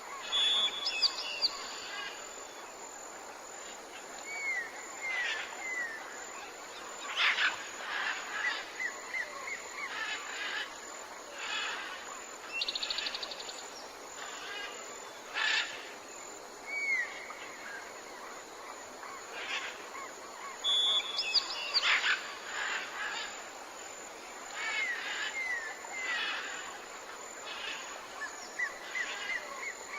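Tropical forest birds calling: short chirps, repeated downslurred whistles and a brief trill from several birds over a steady hiss of forest ambience. The same run of calls comes round again about twenty seconds later.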